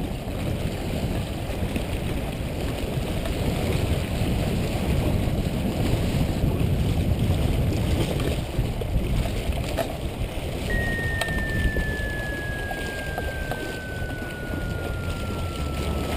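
Wind buffeting the microphone and small waves lapping against shoreline rocks, a steady rough rush. A thin, slowly falling whistle-like tone comes in about two-thirds of the way through.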